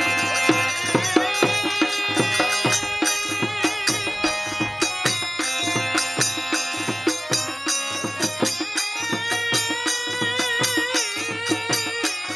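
Devotional Hari kirtan music: a drum beaten in a quick rhythm, each stroke dropping in pitch, with ringing metal jingles and steady sustained tones. A wavering melodic line comes in near the end.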